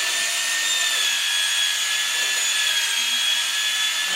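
Power tool running steadily with a high whine whose pitch wavers slightly, as its motor works under load.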